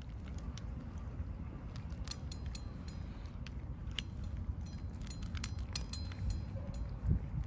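Stray cats chewing food: scattered crisp clicks and crunches, several a second, over a steady low rumble.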